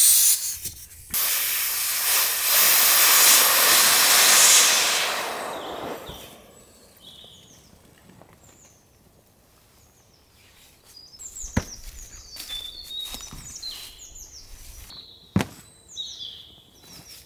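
Air hissing out of an inflatable tent's air beam through its red pressure valve: a short burst, then a longer one that fades out about six seconds in. Afterwards small birds chirp, with two sharp knocks.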